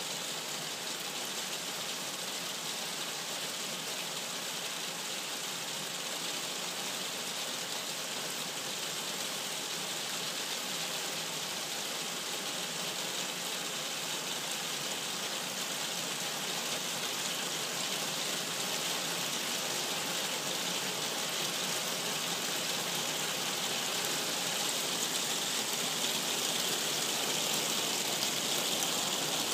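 Heavy rain falling steadily as an even hiss, growing gradually louder toward the end.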